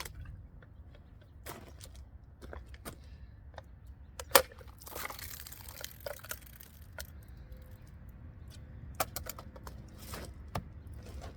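Handling and cutting with a Victorinox Fieldmaster Swiss Army knife: scattered clicks and knocks, a sharp knock about four seconds in, then about a second of scraping as a blade cuts through material.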